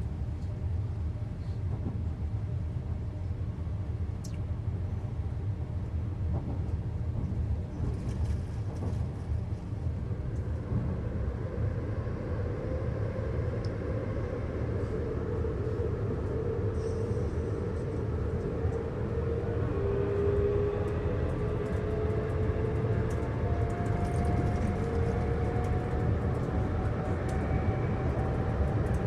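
Inside a Hitachi AT300 electric train pulling away: a steady low rumble from the running gear. From about twelve seconds in, the whine of the traction motors rises slowly in pitch as the train gathers speed.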